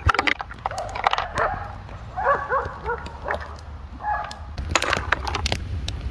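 A dog barking in quick runs of three or four barks, repeated about once a second, over sharp scattered clicks.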